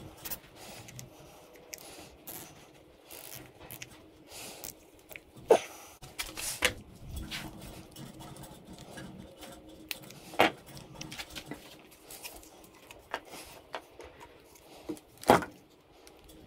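Small metal tools and parts being handled on a wooden workbench: scattered light clicks and taps, with a handful of sharper clicks. The loudest come about five and a half seconds in and near the end.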